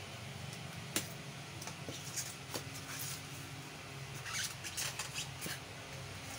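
Handling noises on a workbench: a sharp click about a second in, then small taps and rustling scrapes as hands move a utility knife, a polystyrene foam block and the marble cutter's copper-wound field coil. A low steady hum runs underneath.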